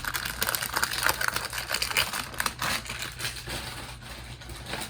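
Cube box packaging being handled and unwrapped: rapid crinkling and clicking that thins out in the last second.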